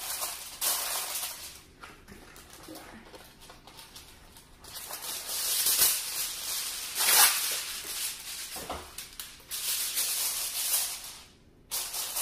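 Aluminium foil crinkling and rustling in several bursts with short quieter gaps, as a sheet is pulled from its box, torn off and pressed down over a glass baking dish.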